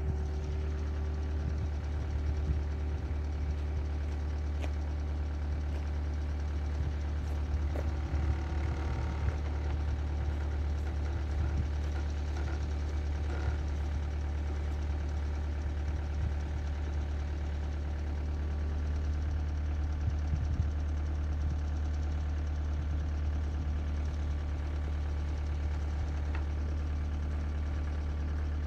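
Skid-steer loader's engine idling steadily, with a few light knocks over it.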